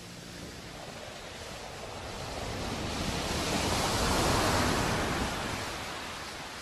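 A rushing noise that swells slowly, peaks about four seconds in, and fades away, like a wave washing in.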